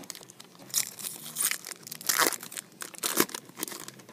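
Trading-card pack wrappers crinkling and tearing as packs are opened by hand: a run of irregular crackly rustles, the loudest about two seconds in and again about three seconds in.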